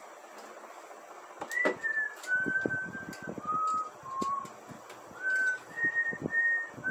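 A short whistled tune of about a dozen clear notes, stepping down in pitch and then back up, with soft knocks and rustles of handling underneath.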